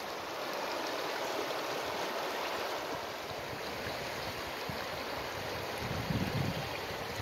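Steady rush of a shallow stream flowing over stones, with wind buffeting the microphone from about six seconds in.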